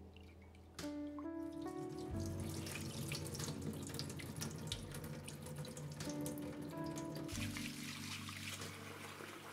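Water splashing in a glass bowl of soaked chana dal, then tap water pouring onto the split chickpeas to rinse them, becoming a steady rush in the last couple of seconds. Background music plays over it.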